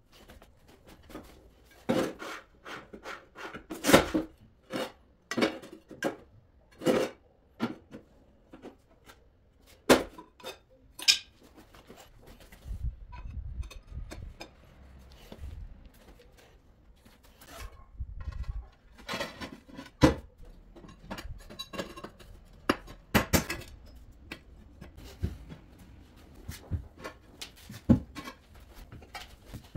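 Glazed floor tiles clinking and knocking against each other and the floor as the pieces are handled, laid and shifted into place: irregular sharp knocks, some louder than others, with quieter clicks in between.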